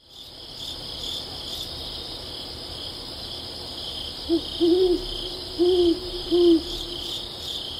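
Night ambience: a steady high chirring of crickets, with an owl hooting four times about halfway through, the first hoot short and the other three longer.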